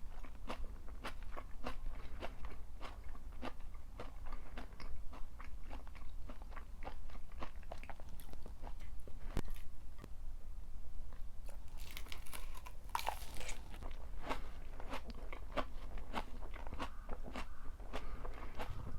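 Close-miked chewing of a shredded pork and napa cabbage stir-fry: a steady run of crisp bites and crunches, several a second, with a brief hissing rustle about two-thirds of the way through.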